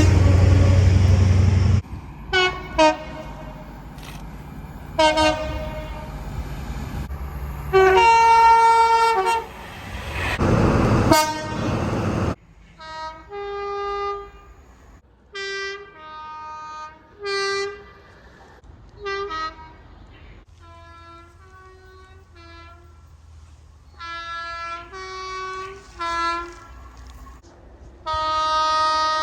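Train two-tone horns. First come several horn blasts over the rumble of a passing train. Then, after a sudden change about twelve seconds in, a long run of short two-note toots, and a long horn near the end.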